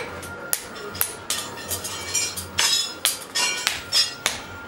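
A blacksmith's hand hammer striking red-hot iron on an anvil in an irregular run of sharp, ringing blows, about two to three a second.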